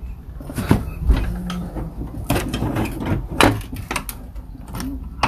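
Scattered knocks and rattles of stored tools and household items being handled and moved, about half a dozen separate knocks, over a low steady rumble.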